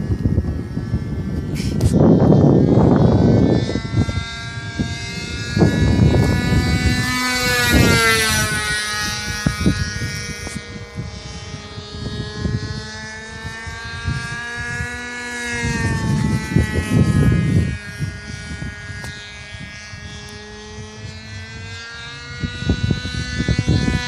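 RC model airplane engine buzzing overhead, its pitch sliding down and back up as the plane passes and changes throttle. Gusts of wind rumble on the microphone several times.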